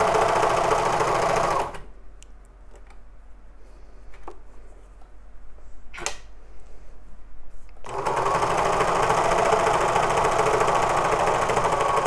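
Serger (overlocker) running steadily while stitching a knit side seam. It stops a little under two seconds in, and after a quiet pause with a few faint clicks of fabric being handled, starts up again about eight seconds in.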